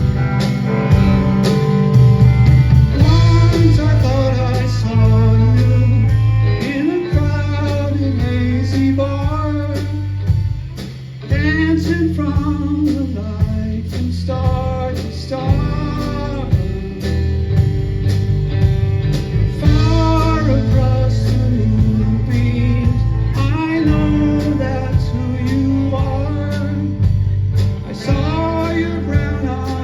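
A song played by a band: a voice singing over guitar with a heavy, steady bass line, in a blues or country style.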